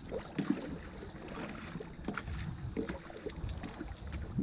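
Steady low wind and water noise around a small fishing boat, with a few faint knocks.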